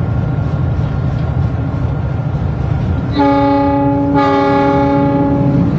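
A locomotive's horn sounds from the driver's cab, starting about three seconds in: one long blast, re-sounded briefly partway through. Beneath it is the steady low rumble of the locomotive's engine and the train running.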